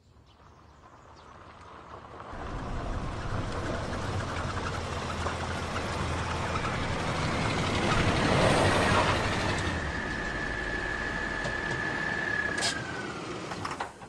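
Small cab-over truck drives up, its engine growing louder over the first two seconds and then running steadily. A high squeal holds for several seconds and drops in pitch as the truck slows to a stop near the end.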